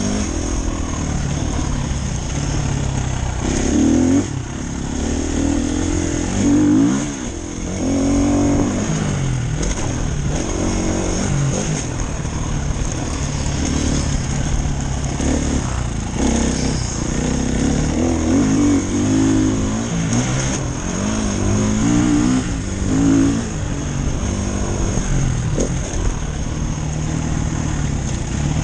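Dirt bike engine heard close from the rider's helmet, revving up and dropping off again and again as the throttle is opened and closed and the gears are shifted, with a rising and falling pitch throughout.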